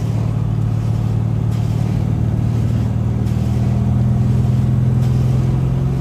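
1968 Chevrolet Chevelle's engine running steadily as the car drives off, swelling slightly about four seconds in before easing back.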